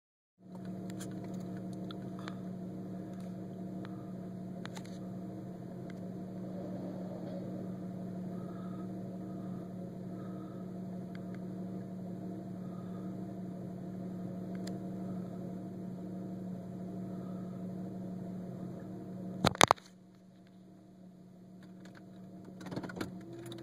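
Steady mechanical hum at an unchanging pitch, heard from inside a vehicle. A couple of sharp loud clicks come near the end, after which the hum stops and only faint knocks remain.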